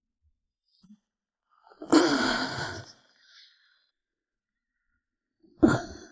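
A man's wordless, voiced sigh about two seconds in, then a short breath near the end, with dead silence around them.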